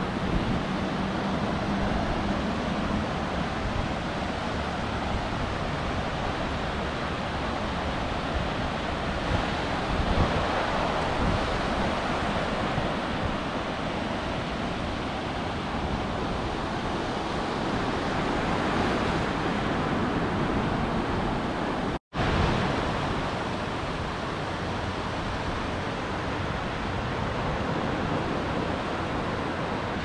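Low surf breaking offshore and washing up over the sand in a steady rush that swells and eases, with wind rumbling on the microphone. The sound cuts out for a split second about two-thirds of the way through.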